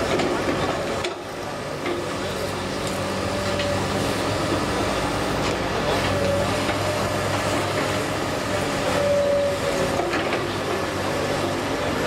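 Komatsu PC210LCi hydraulic excavator's diesel engine running steadily under load as the machine swings and works its bucket in gravel, with a high hydraulic tone that comes and goes and a few scattered knocks.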